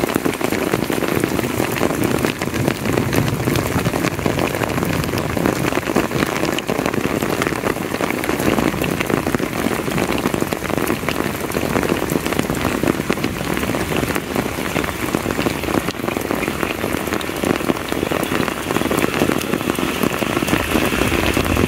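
Heavy rain falling on leaves, grass and wet paving: a dense, steady hiss of countless drop impacts that keeps an even level throughout.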